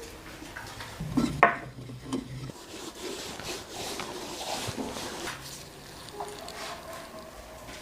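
Food preparation sounds: utensils scraping and clinking, with one sharp knock about a second and a half in.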